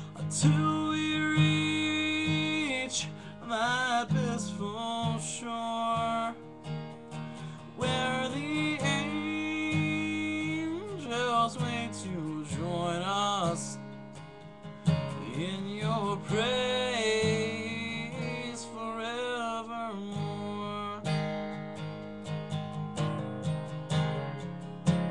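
A man's voice singing a country gospel hymn's chorus over a strummed acoustic guitar. Near the end the singing stops and the guitar strumming carries on alone.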